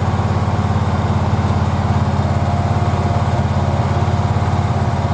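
Generac GP17500E portable generator's OHVI gasoline engine running steadily at constant speed, a rapid even pulse with a faint steady whine above it.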